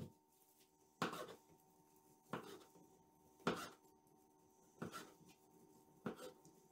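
Plastic bag of white sauce being squeezed over a pizza: a short crackling squirt about every second and a quarter, six in all, over a faint steady hum.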